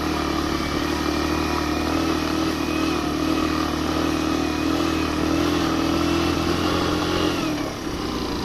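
Suzuki GN 125's single-cylinder four-stroke engine held at high revs, pulling a passenger up a steep climb at high altitude, where the thin air saps its power. Near the end the revs drop.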